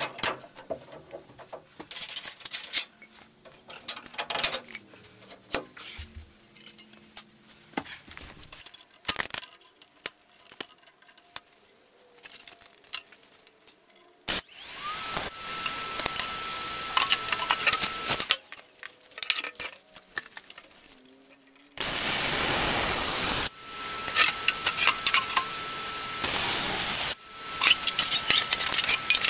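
Steel parts and hand tools clinking and clanking as a suspension control arm fit-up is taken apart. About halfway through, a MIG welder's arc starts up: it hisses and crackles in several runs of a few seconds each, starting and stopping abruptly, with a faint steady whine under each run.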